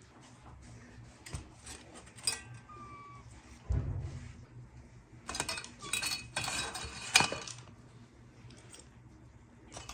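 Cutlery and dishes clinking and clattering: a few separate clinks with short rings, then a busier clatter of metal and crockery about halfway through.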